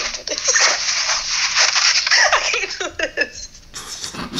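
A person's breathy, hissing vocal noises with short sliding pitches, and a brief louder hiss near the end.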